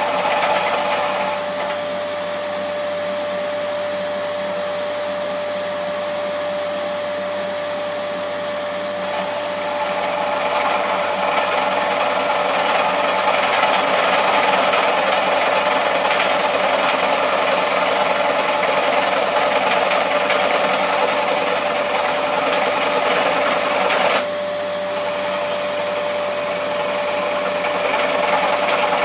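Scheppach SD1600V scroll saw running with a steady whine, its blade sawing through 4 mm aluminium. The cutting noise is louder from about nine seconds in and drops back suddenly a few seconds before the end.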